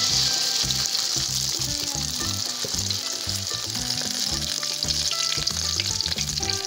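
Beaten egg with chopped green beans and spring onion frying in hot oil in a wok: a loud, steady sizzle with fine spattering crackles as the omelette batter hits the oil and is spread with a spoon.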